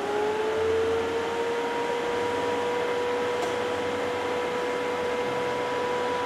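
Transmission dyno spinning up a 47RE automatic transmission. A whine rises slightly in pitch over the first second, then holds steady over a steady mechanical hum as the dyno runs.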